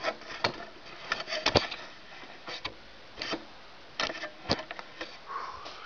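Irregular clicks and knocks of a portable typewriter and its wooden case being handled, about eight sharp taps scattered over several seconds.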